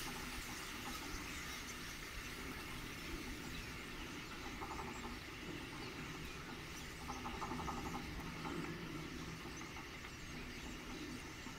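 A huge flock of starlings flying close by in a murmuration: a steady rushing noise of countless wingbeats.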